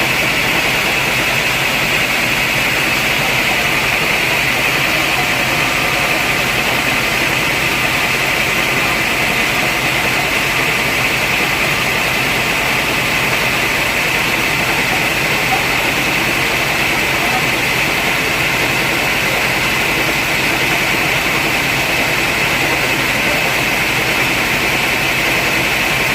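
Sawmill machinery running steadily, a loud unbroken mechanical noise with a strong high hiss and no knocks or pauses.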